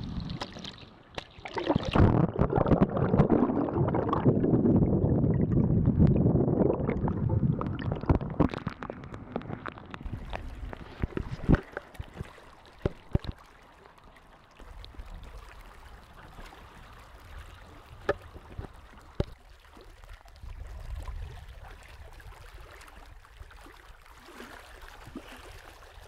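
Water rushing and splashing against a Sunfish sailboat's hull close to the microphone, loudest for several seconds about two seconds in, then easing to a quieter wash. It is broken by scattered sharp knocks, with a low rumble of wind in the second half.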